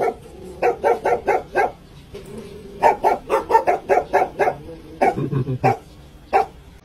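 A dog barking in quick runs of short barks, several a second, with brief pauses between the runs.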